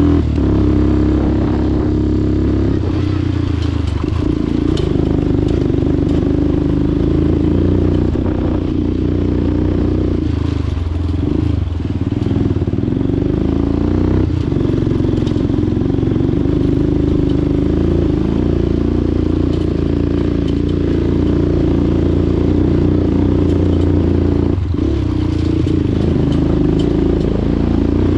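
A vehicle's engine running steadily under load as it climbs a rough, bumpy road, with its note dipping and changing briefly about twelve seconds in and again near twenty-five seconds.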